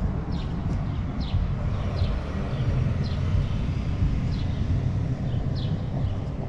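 A steady low rumble with a bird chirping over it, short falling chirps repeated every half second or so.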